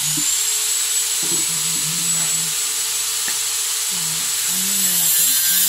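Loud steady hiss with a thin high whistle held through it; it comes on suddenly just before and grows a little louder near the end.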